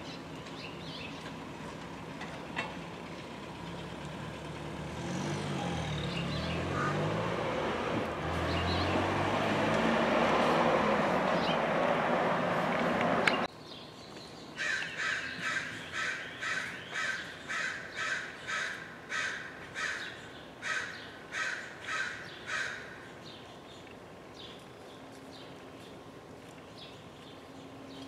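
Street traffic with a motor vehicle passing, building up to a peak, then cutting off suddenly. Then an American crow calls a rapid run of about sixteen caws, roughly two a second, lasting about eight seconds.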